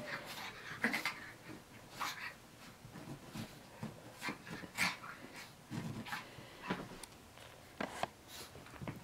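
Yorkshire terrier puppy making short, scattered little noises, about one a second, as it plays with and worries a plush toy.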